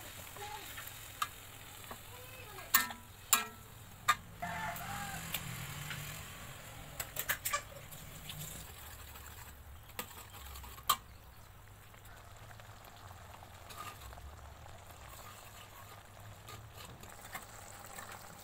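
Spatula stirring sauce-coated chicken, shrimp and onion in a wok as they sizzle, with a quiet steady hiss. The spatula knocks sharply against the wok several times in the first half.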